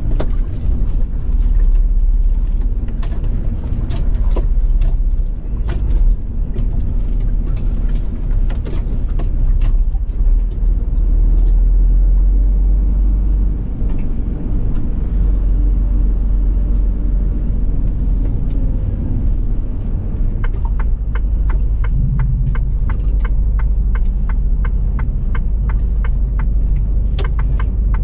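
Semi-truck driving, its engine and road noise making a steady low rumble, with scattered knocks in the first half. From about twenty seconds in, a rapid, even ticking joins it.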